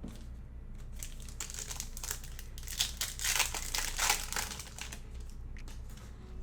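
Wrapper of a Panini Select basketball card pack crinkling and tearing as it is ripped open, a dense run of crackles loudest about three to four seconds in.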